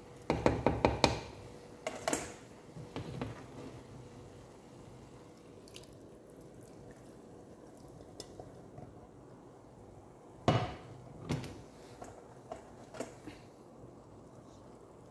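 Kitchen utensil and container knocking against a cooking pan while chicken curry sauce is poured and spooned over rice: a quick run of about six taps near the start, then scattered knocks, one loud one partway through.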